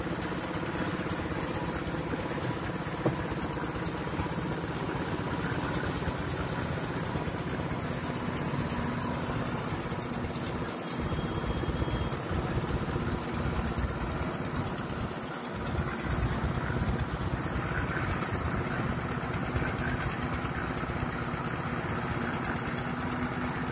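Single-cylinder 7 hp '180' diesel engine running steadily as it drives a mini concrete lift, with its note swelling briefly about two-thirds of the way through.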